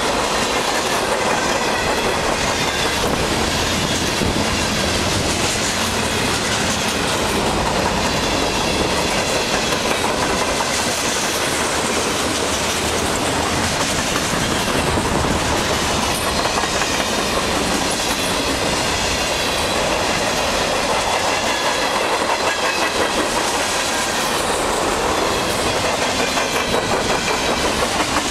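Freight cars of a long mixed freight train rolling past at close range: steady noise of steel wheels on the rails, with no break or change.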